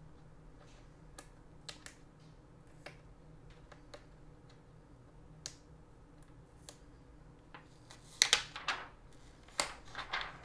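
Scattered faint clicks and taps as a new laptop is handled. About eight seconds in comes louder crackling as its protective plastic film is peeled off.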